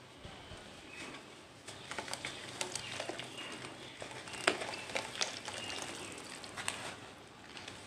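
Fluffy white cement chunks crumbled and squeezed by hand in a pot of water: an irregular run of crackles and crumbling, starting about two seconds in, the sharpest crack about halfway through.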